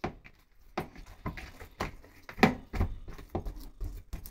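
A hand kneading and punching soft, oiled bhatura dough in a bowl: a run of irregular soft thumps, about two a second.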